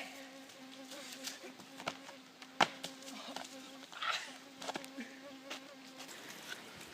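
Insect buzzing: a steady, faint hum with short breaks that stops about six seconds in. Scattered light clicks sound through it, with one sharp click about two and a half seconds in.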